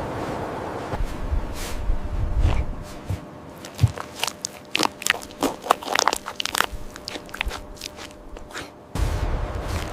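A string of irregular sharp crunches and clicks over about six seconds, with a low rumble before them and again near the end.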